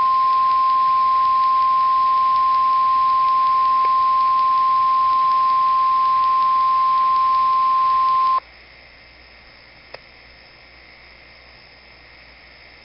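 NOAA Weather Radio 1050 Hz warning alarm tone, sent as a weekly test; the tone is what automatically switches on specially equipped alert receivers. It is a single loud, steady, high-pitched tone over radio hiss and cuts off suddenly about eight seconds in. Faint radio static follows, with one click about ten seconds in.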